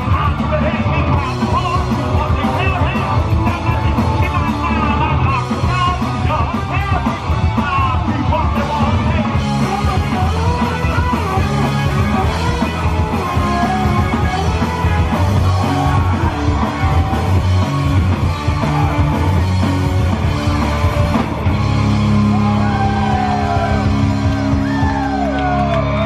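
Punk rock band playing live: loud electric guitars, bass and drums with the singer shouting the vocals. About 22 seconds in, the band settles into a held, ringing chord.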